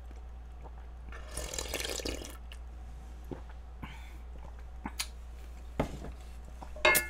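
Beef-and-radish soup being slurped straight from the pot for about a second. This is followed by a few light knocks and, near the end, one louder ringing clink of a ladle against the pot.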